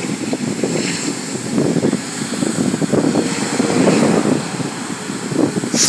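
Distant jet noise from the Rolls-Royce Trent 800 engines of a Boeing 777-200ER on its landing roll: a continuous rumble that swells and eases slightly.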